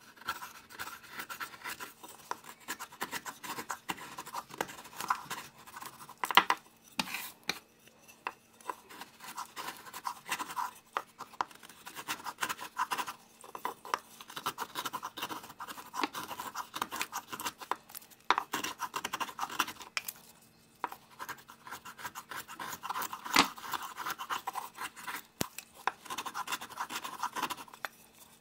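Carving knife shaving curls off a wooden spoon blank by hand: a rapid, irregular run of dry scraping strokes with short pauses and a few sharper clicks.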